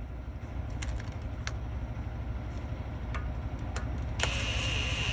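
Steady low rumble with a few light metallic clicks of tools and parts. About four seconds in, a Milwaukee half-inch cordless impact gun on its low-speed setting starts running with a steady high whine.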